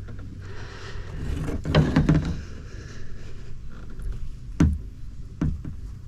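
Handling noises as a freshly landed fish is held: a few sharp knocks and some rustling over a low steady rumble.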